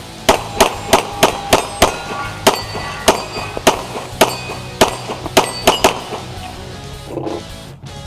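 A rapid string of pistol shots, about two to three a second for the first six seconds, with steel plate targets clanging as they are hit.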